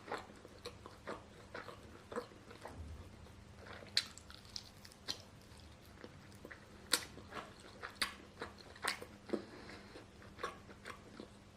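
Close-up chewing and biting of a sauced fried chicken drumstick: irregular wet mouth smacks and clicks, a few each second.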